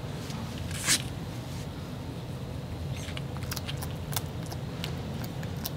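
Bearded dragon biting and chewing a live mealworm: a string of sharp, crisp clicks from its jaws in the second half. About a second in there is one brief, louder hiss-like sound, over a steady low background hum.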